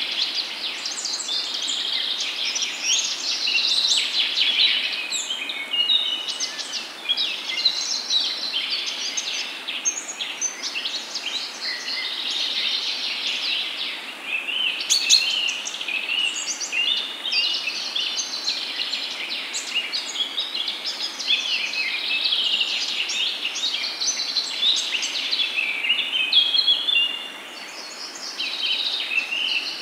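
Hot oil sizzling and crackling steadily around peyaju, lentil-and-onion fritters, deep-frying in a pan. The crackle dips briefly near the end.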